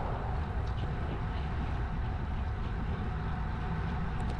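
Wind buffeting the microphone of a GoPro action camera carried on a moving bicycle: a steady, low, fluttering rush of air noise with road noise under it.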